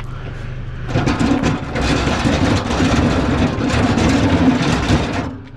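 A heavy scrap item scraping and rattling as it is tipped and slid into a pickup truck bed, starting about a second in and stopping just before the end, over a steady low hum.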